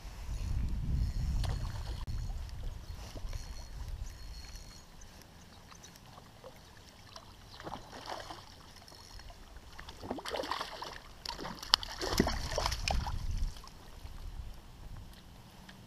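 A hooked fish thrashing and splashing at the water's surface as it is reeled up beside a kayak: a short burst of splashing about halfway through, then a longer, louder spell of splashing with a sharp knock, ending as the fish is lifted out. A low rumble of wind or handling on the microphone comes first.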